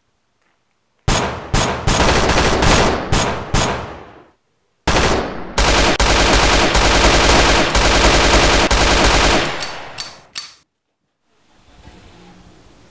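Automatic gunfire: several short loud bursts for about three seconds, a brief pause, then a long burst of rapid fire lasting about five seconds that stops with a short echoing tail.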